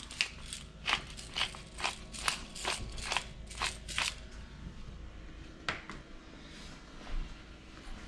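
Hand-held pepper grinder being twisted, crunching peppercorns as a run of short crunchy clicks about two to three a second. The grinding stops about four seconds in, followed by a single click a little later.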